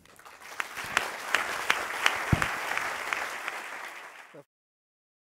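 Audience applauding, swelling over the first second, then cut off abruptly near the end.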